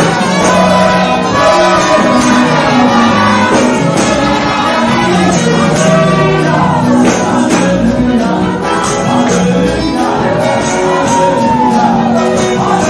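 Live church gospel music: a woman and a man singing into microphones over a band with a steady beat.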